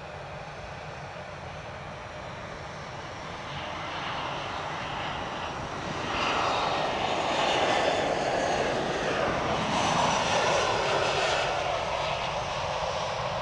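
Jet engines of an easyJet twin-engine airliner on final approach, growing louder as it descends past overhead. The sound swells from about four seconds in and is loudest from about six seconds until near the end.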